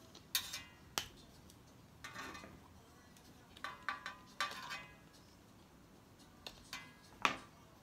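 Small plastic toy pieces being handled in the fingers: a scattered series of light clicks and a few short crinkles, about ten in all, the loudest near the end.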